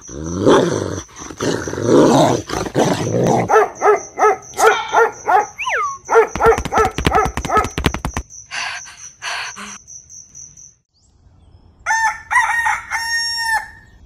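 Animal sound effects: a high, steady pulsing chirp of night insects under a run of short, repeated yelping calls, then a rooster crowing near the end in a few calls that finish on one long held note.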